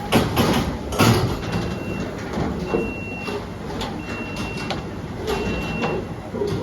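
An electronic beeper sounding four steady high beeps, each about half a second long and roughly 1.3 seconds apart, over a noisy, clattering background with two sharp knocks near the start.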